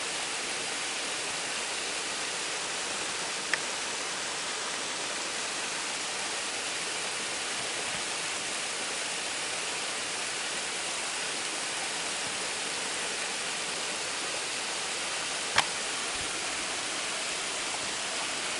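A small waterfall on a mountain stream, its water rushing steadily in an even hiss. Two brief sharp ticks cut through it, one about three and a half seconds in and one about three seconds before the end.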